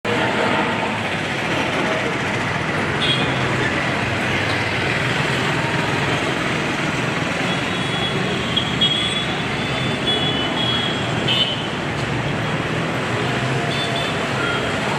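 Steady traffic noise on a wet road, with motorcycles, scooters and auto-rickshaws passing. A few short, high horn toots come about three seconds in, several times in the middle, and again near the end.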